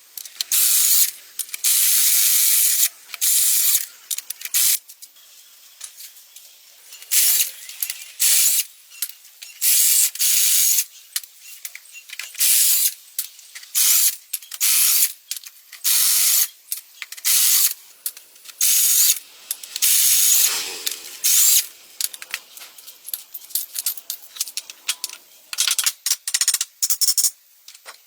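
Workshop noise from dump truck axle repair: a rapid series of short, harsh hissing bursts, each half a second to about a second long, with short quieter gaps between.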